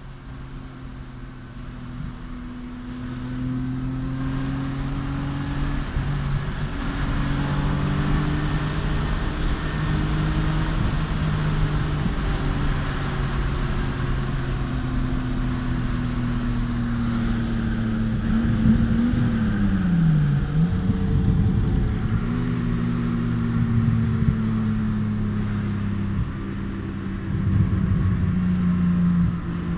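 Car engine and road noise heard from inside the cabin while driving. The engine note shifts up and down in steps, with a brief sharp drop and climb back about two-thirds of the way through.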